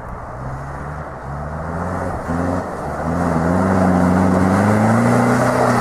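Flatbed tow truck's engine revving, its pitch climbing in several steps and getting louder about three seconds in, over steady road and wind noise.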